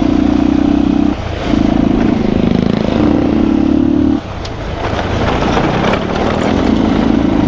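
Motorcycle engine pulling hard in three bursts as the throttle is opened and eased off. In the middle the engine note drops back for about two seconds under a rough rushing noise.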